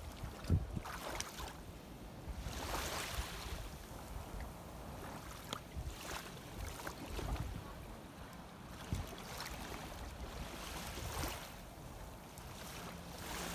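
Shallow seawater sloshing and swishing in a few surges that swell and fade, over wind rumbling on the microphone.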